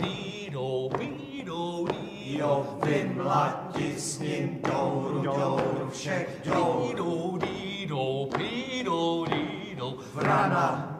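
A small vocal group singing a folk-style song together, chant-like, over a steady low drone.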